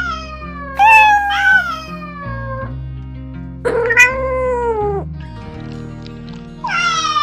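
Domestic cats meowing: a string of short falling meows, a longer drawn-out one about four seconds in, and another near the end, over background music with sustained low notes.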